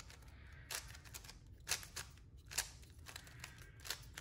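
A plastic 3x3 speed cube, a QiYi Warrior S glued into a bandage cube, being turned by hand: faint, irregular plastic clacks, about five or six in four seconds.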